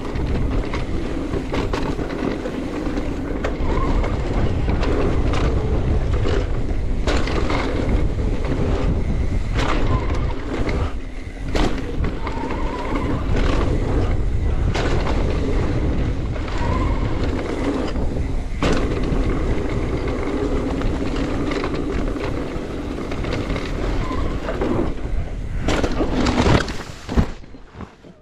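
Mountain bike riding fast over a dirt trail: wind buffeting the handlebar-mounted microphone and tyres rumbling, with frequent clattering knocks from bumps. Near the end comes a loud crash impact as the rider goes down.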